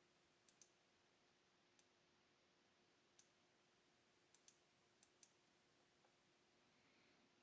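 Faint computer mouse clicks, about eight scattered over five seconds and some in quick pairs, over near-silent room tone with a low steady hum.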